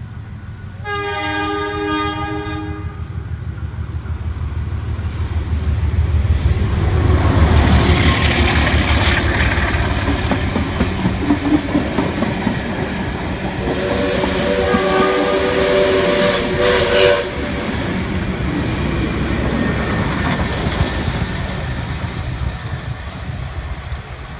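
Heritage passenger train led by diesel locomotive 4490 passing close by. Its horn sounds one chord, about two seconds long, about a second in. The locomotive's rumble and the carriages' wheels clattering over the rail joints build to a peak and then fade, with a second shorter horn or whistle chord around the middle.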